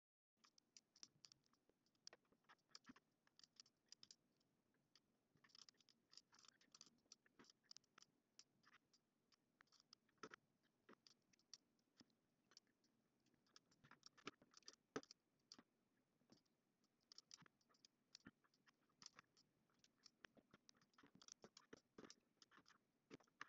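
Near silence broken by many faint, irregular clicks and taps, with the strongest about fifteen seconds in. They are computer mouse and keyboard clicks made while working on the computer.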